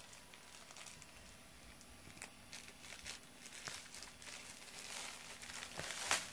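Faint rustling and crinkling with scattered light clicks, growing denser and louder toward the end, with a sharp click about six seconds in.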